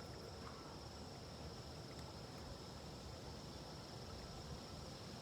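Faint outdoor ambience: a steady, high-pitched insect chorus over a low rumble of background noise.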